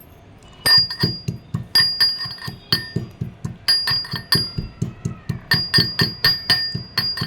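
Whole spices for a cold remedy (dry ginger, cumin, cloves, cardamom, fenugreek) being crushed in a stone mortar with a pestle. Quick repeated strikes, about three a second, begin about a second in, each with a short bright ring.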